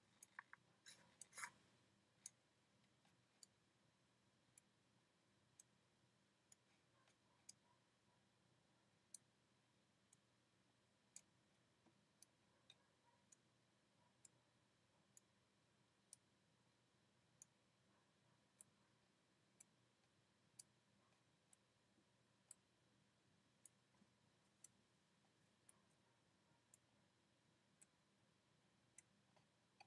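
Near silence broken by faint, sharp clicks about once a second, with a short cluster of louder clicks about a second in.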